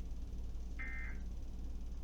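One short electronic beep of several high tones sounding together, about a second in, part of a beep that repeats about every 1.3 seconds, over a steady low hum.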